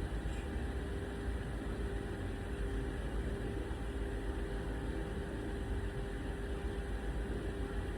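Steady background hum and hiss with a faint held tone, unchanging throughout.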